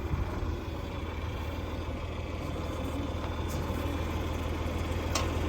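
Tractor engine idling steadily, with one short click near the end.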